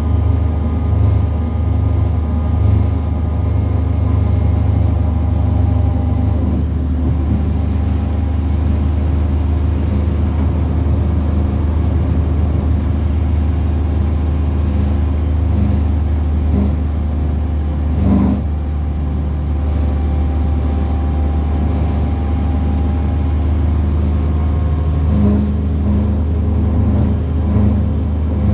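Bus 47947 travelling at speed, heard from on board: a steady low engine and road rumble with faint steady whining tones above it, the strange noises the bus was making. A brief knock about eighteen seconds in.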